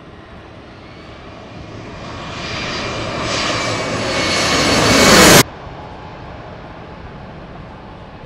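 Embraer E170 airliner flying low overhead on final approach, its CF34 turbofan engines whining. The noise swells steadily to a loud peak, then cuts off sharply a little over five seconds in, leaving a quieter steady rush.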